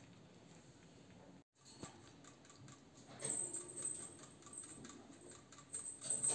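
Hamster drinking from a cage water bottle: light, rapid ticking as it licks the bottle's metal spout, picking up about two seconds in and louder after about three seconds.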